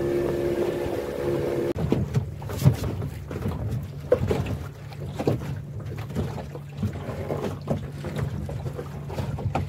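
Small wooden fishing boat's engine running under way, with wind on the microphone. About two seconds in it cuts to a lower, steady engine hum, with wind buffeting and scattered small knocks.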